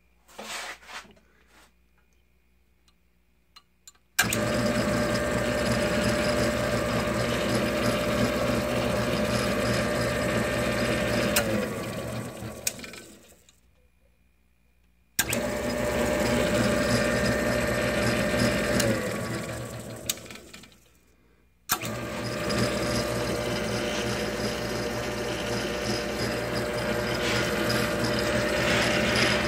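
Motor of a 1950s Craftsman drill press switched on three times. Each start comes with a sharp click and goes straight into a steady hum. The first two runs are switched off, and the motor winds down with a falling tone to a stop.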